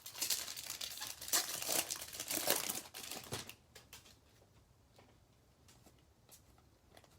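Crinkling and rustling of baseball trading cards and their pack wrapper being handled, for about three and a half seconds, then a few faint taps.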